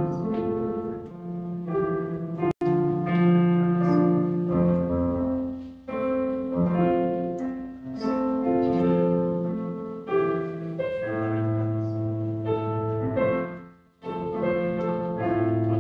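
Slow instrumental piano music with held chords. The sound cuts out for an instant about two and a half seconds in.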